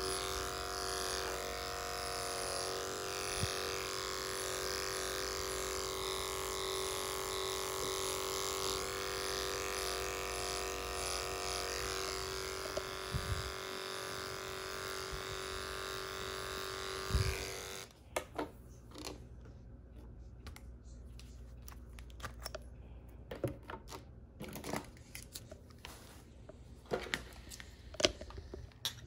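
Electric dog-grooming clippers running with a steady hum as they shave through a dense curly coat, switching off abruptly about two-thirds of the way through. After that come scattered light clicks and knocks of tools being handled on the grooming table.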